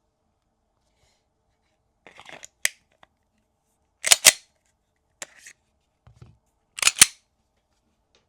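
Sharp metallic clicks and clacks of a 9mm pistol being handled, with faint rustling. The sounds come in a few separate groups, the two loudest a quick double clack each, about four and seven seconds in.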